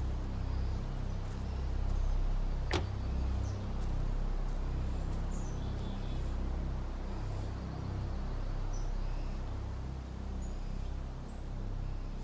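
A car door shutting once, about three seconds in, over a steady low outdoor rumble with a few faint bird chirps.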